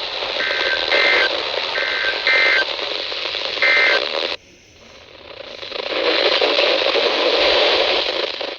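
Radio receiver static hiss with several short two-tone beeps in the first four seconds. The hiss cuts out suddenly about four seconds in and swells back about two seconds later.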